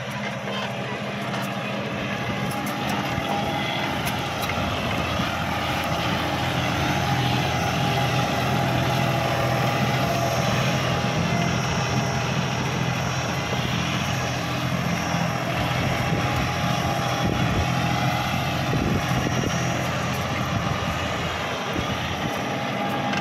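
John Deere tractor's diesel engine running steadily under load while it pulls a mouldboard plough through the soil.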